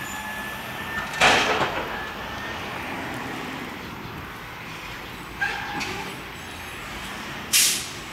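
Steady street traffic noise, broken by three short loud hissing bursts: about a second in, halfway through, and near the end.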